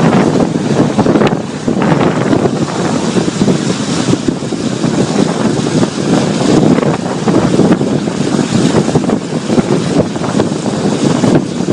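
Wind buffeting the microphone in a loud, steady rush, mixed with the noise of vehicles on a rain-wet road.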